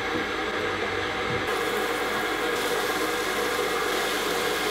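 Food frying in oil in a stainless steel pot on a gas burner: a steady sizzling hiss that grows brighter about one and a half seconds in and again a second later.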